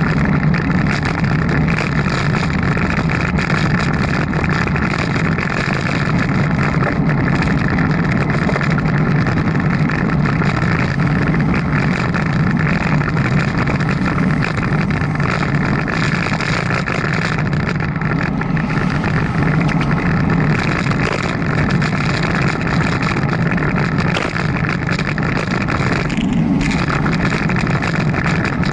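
Steady rushing noise of riding a bicycle, with wind on the action camera's microphone and a low rumble from the road.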